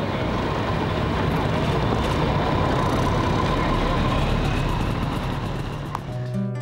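Steady street noise with traffic, an even rushing haze. About six seconds in, a click, and then a guitar starts picking notes.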